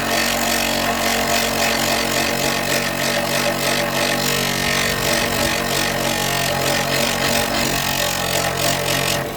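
Electric sanding or grinding machine running steadily, its abrasive pressed against the tip of a wooden walking stick and scorching the wood. The motor hums under a hard, even hiss that stops abruptly near the end.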